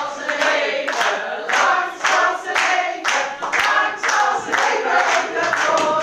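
A group of voices singing or chanting together in a quick, steady rhythm.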